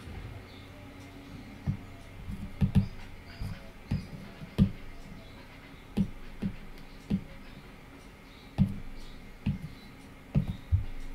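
Stylus tapping on a tablet's glass screen: short dull taps at an uneven pace, about one or two a second, as menu items and colour swatches are picked.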